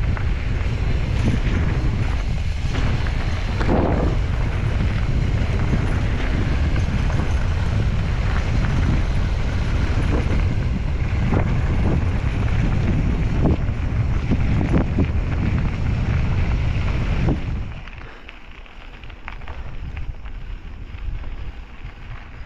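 Wind buffeting the action camera's microphone over tyres crunching on gravel and the mountain bike rattling on a fast descent of a rough track, with many small knocks. About 17 seconds in it drops suddenly much quieter, leaving softer rolling noise and a few clicks.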